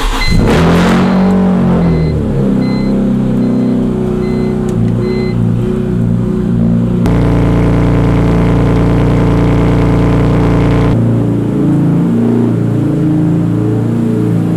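A straight-piped BMW E46 M3's 3.2-litre inline-six (S54) starting after sitting in storage for a long time: it catches right away, flares up and settles to a loud, slightly uneven idle. A repeated beeping sounds over the first few seconds, and the exhaust is fuller in the middle stretch, recorded close to the tailpipes.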